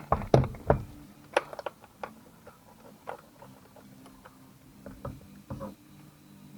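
Tools and metal parts clicking and knocking as the steering wheel is unbolted and pulled off the steering column: a few loud knocks in the first second and a half, then lighter scattered ticks, with another short run of knocks about five seconds in.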